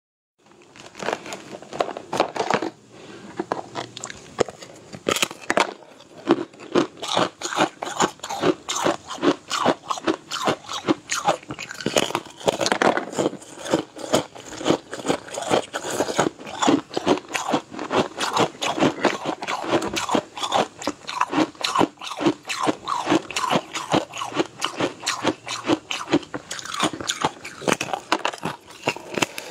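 A person biting and chewing thin, crisp brown snack sheets: a quick, steady run of crunches, several a second.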